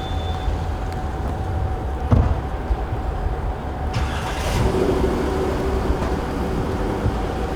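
A motor vehicle engine running steadily with a low rumble, and a single knock about two seconds in; a second steady tone joins about halfway through.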